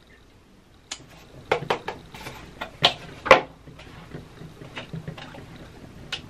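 Clicks and knocks of plastic skincare bottles and tubes being handled: a quick run of sharp taps from about a second in, the loudest a little over three seconds in, then softer taps.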